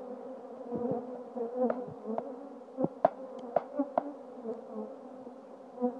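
A mass of Italian honeybees buzzing with a steady hum, stirred up as they are shaken out of their package into the hive. Several sharp taps between about one and four seconds in, from the package being knocked to dump the bees out.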